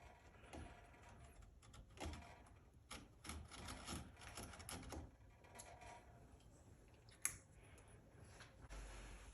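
A hand tool scraping along wood in short, irregular strokes while the sides of a bowtie inlay are trimmed, with one sharp click about seven seconds in.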